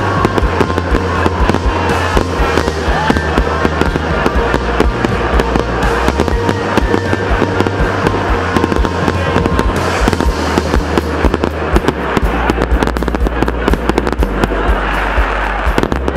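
A New Year fireworks display: many rockets and shells bursting and crackling in quick succession, with music playing underneath.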